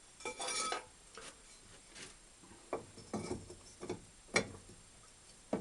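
Hand tools being handled: a scatter of short metal clicks and clinks as a wrench is picked up and fitted to the suspension nuts, the sharpest click about four seconds in.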